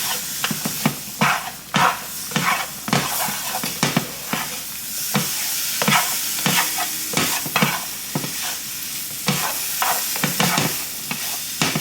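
Mushrooms and flour sizzling in a hot pan while being stirred, a steady sizzle with the utensil scraping and knocking against the pan in quick, irregular strokes: flour being cooked into the fat to start a mushroom gravy.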